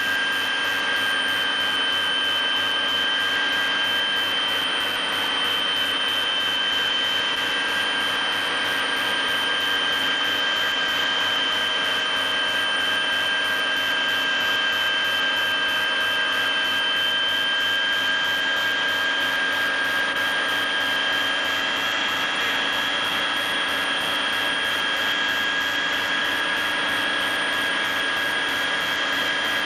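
Aircraft engine running steadily, heard from inside the cabin: a high, steady whine over an even rushing noise.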